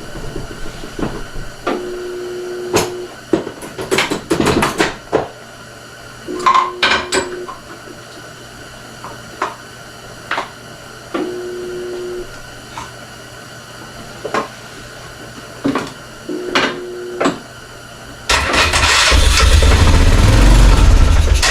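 Freshly rebuilt single-cylinder four-stroke engine of a 1996 Honda Fourtrax 300 ATV being started. It makes several brief starting attempts with sharp pops, while fuel is fed through the carburetor intake. About 18 seconds in, it catches and runs loudly.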